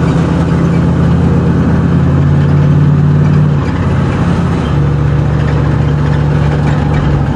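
Dodge Ram van engine running steadily through a homemade exhaust muffler made from a fiberglass-packed toolbox. It gives a low, even exhaust note that sounds quiet, and the tone shifts slightly about halfway through before settling back.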